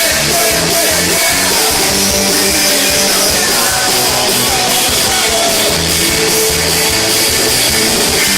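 Live punk rock band playing loud through a PA, distorted guitars, bass and drums with singing, recorded close up from the crowd.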